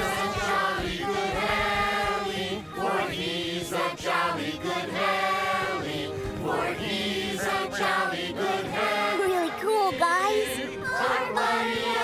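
A song sung by a group of voices, with instrumental backing.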